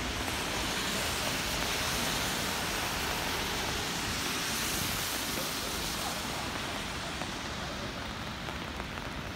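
Steady rain falling on wet city streets, mixed with the hiss of car tyres on the wet road. The high hiss thins about two-thirds of the way through.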